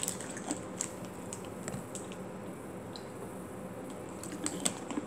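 Quiet eating and handling noises: a few soft, scattered clicks and squishes of chewing, and a small clear plastic cup being handled and lifted to the mouth.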